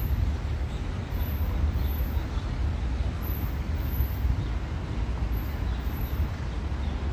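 Steady low rumble of city street ambience with distant road traffic.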